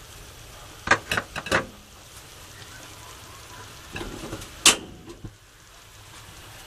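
Kitchenware knocking and clinking against a cooking pot: a quick cluster of sharp knocks about a second in, and another about four seconds in, the loudest near the middle of that second cluster, over a low steady background hum.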